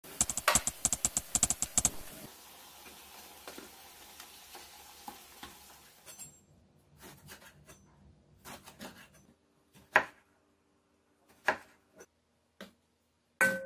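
Battered eggplant slices frying in oil in a nonstick pan: dense crackling for about two seconds, then a softer steady sizzle. From about six seconds in, scattered knocks of kitchenware on a wooden cutting board, the last one with a short ring from a stainless steel bowl.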